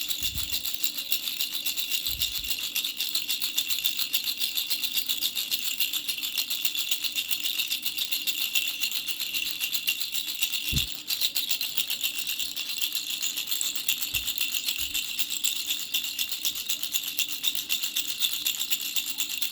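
Baby rattle toy shaken quickly and steadily, a dense continuous rattling of many fast clicks, with a brief break and a soft knock about eleven seconds in.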